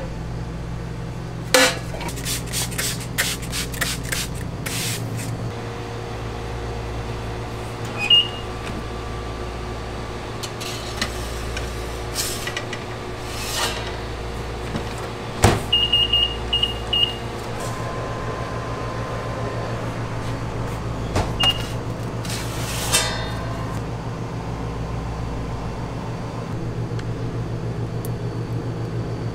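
Kitchen food-prep sounds over a steady low hum: light clicks and clinks from a stainless steel pan early on. About 15 seconds in, a countertop oven door shuts with a sharp clack, followed by a quick run of high electronic beeps from its controls. A few single beeps and light taps follow.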